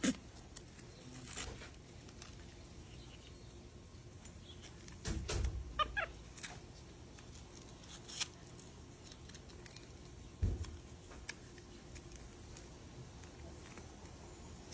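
Faint scraping and tapping of a plastic fork stirring patching compound in a plastic tub, with scattered small knocks and two soft thumps. About six seconds in comes a brief high-pitched animal call.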